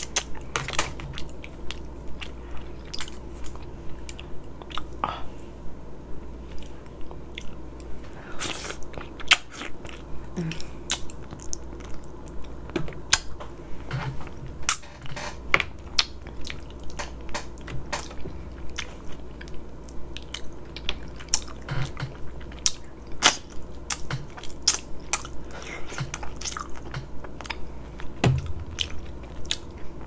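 A person chewing close to the microphone, eating egusi soup: wet lip smacks and frequent sharp mouth clicks, with a steady low hum underneath.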